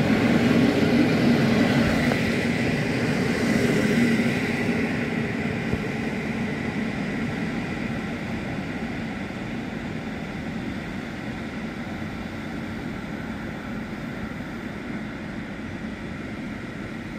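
Departing passenger train, coaches hauled by an EU07 electric locomotive, rolling away over the rails: a steady rumble of wheels that fades gradually as the train draws off, with a faint high whine over the first few seconds.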